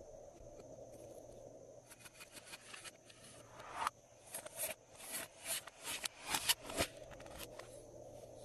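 Glossy slime being worked by hand: a quiet stretch, then from about halfway a run of about eight short, soft clicks and pops as the slime is pressed and squished.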